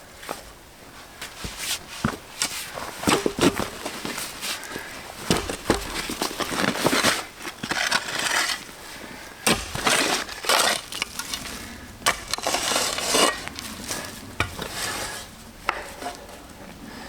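Irregular scraping, clinking and knocking of hard objects being handled, with a few longer scrapes between scattered sharp knocks.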